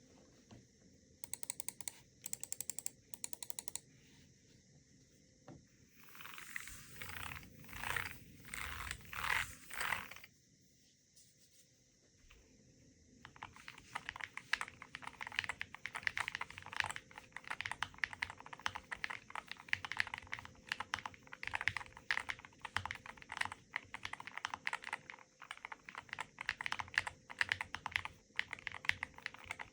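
Typing on a Chilkey ND75 LP low-profile mechanical keyboard with linear switches. Short flurries of key clicks come first, then four longer, smeared sounds about halfway through the first third, then a lull. From roughly 13 seconds in, fast continuous typing runs on.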